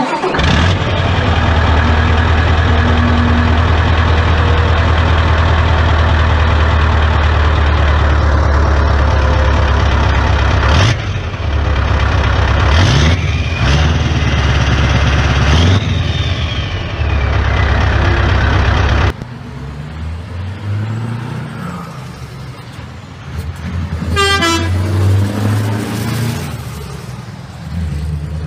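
Scania V8 truck engine running loud and steady right at its exhaust pipe: a deep rumble with rapid firing pulses and a brief rise and fall in pitch past the middle. It cuts off suddenly about two-thirds of the way in, leaving a quieter truck engine sound.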